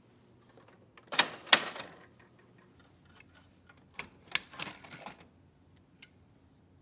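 Hard plastic clicks and rattling as a toner cartridge is handled in a Lexmark XC2132 colour laser printer. There are two loud clacks about a second in, then a run of clicks and sliding scrapes about four seconds in as the cartridge is worked in its slot.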